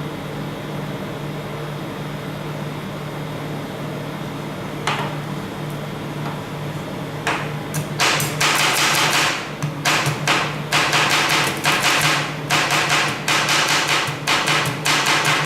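Metal spatulas chopping and striking on the steel cold plate of a rolled ice cream machine, starting with a single knock about five seconds in and building from about seven seconds into fast repeated clacking. A steady machine hum runs underneath.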